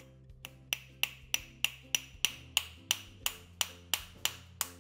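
Small hammer tapping a steel ball bearing seated in a power-steering idler pulley: a regular run of sharp metallic taps with a short ring, about three a second, beginning under a second in.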